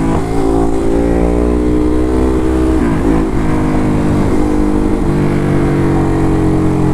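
Ducati Hypermotard's L-twin engine running steadily while riding, the pitch holding level with a couple of brief dips.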